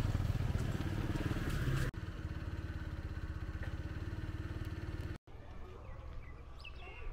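Small motorbike engines running on a road, with a sudden change about two seconds in to a steadier, pulsing engine sound while riding a scooter. About five seconds in the engine noise cuts off, leaving quieter outdoor background with faint high chirps.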